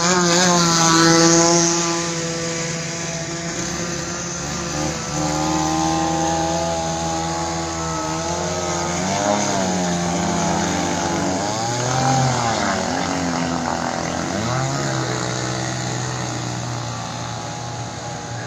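Small two-stroke brush-cutter engine driving an RC model speedboat, running at high revs. Its pitch dips and climbs back several times as the throttle is eased and opened again.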